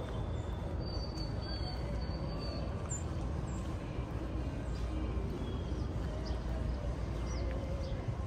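Outdoor city park ambience: a steady low hum of city traffic, with small birds chirping now and then above it.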